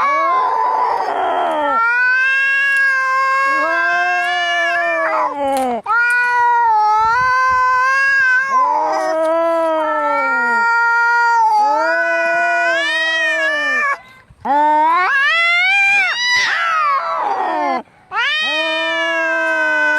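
Cats caterwauling in a fight: long, drawn-out yowls that waver up and down in pitch, broken by short hissing spits, about a second in and again around 16 seconds.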